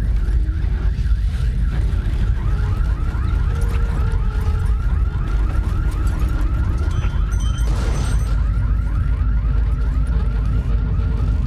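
Simulated earthquake: a loud, steady low rumble, joined about two seconds in by an alarm's rapid repeating electronic chirp, about four a second.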